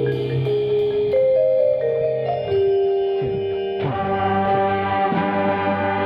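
Vibraphone played with four mallets, its notes ringing on and overlapping, within a percussion ensemble. About four seconds in, more instruments come in together and the sound fills out.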